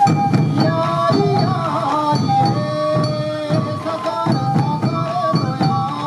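Traditional sansa odori festival music: taiko drums beating under a held, shifting melody, typical of bamboo flutes.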